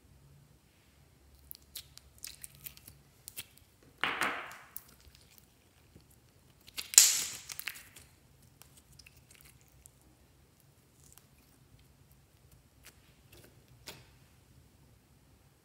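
Blue slime being handled: taken out of a butterfly-shaped mold and stretched by hand, giving a run of small sticky clicks and pops, with two louder squelches about four and seven seconds in, the second the loudest.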